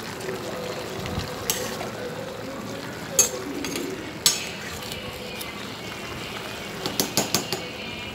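Vegetables cooking in a pot being gently stirred with a metal spoon: a steady hiss with a few sharp clinks of the spoon against the pot, and a quick run of four clinks near the end.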